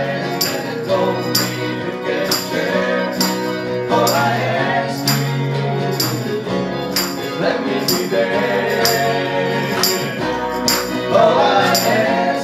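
Small acoustic band playing live: acoustic guitar, bass guitar and keyboard, with voices singing the melody and a crisp percussive tick on the beat.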